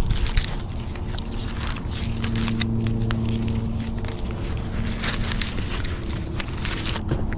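A climbing tether rope and gear being handled and coiled against the tree: rustling with scattered clicks, over a steady low hum.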